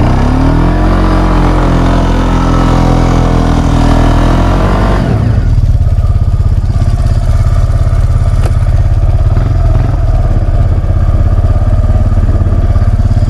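Polaris 500 ATV engine accelerating, its pitch rising over the first few seconds. About five seconds in, it changes to a steady, low pulsing rumble as the quad runs on.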